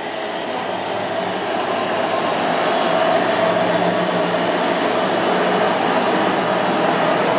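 A British Rail Class 60 diesel-electric freight locomotive approaching at low speed: the steady drone of its Mirrlees eight-cylinder diesel engine grows steadily louder as it draws near.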